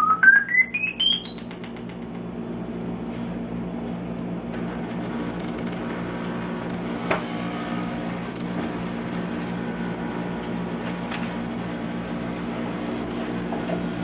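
Quick run of short electronic test beeps climbing in pitch step by step to a very high tone, ending about two seconds in, then a steady low hum in the room.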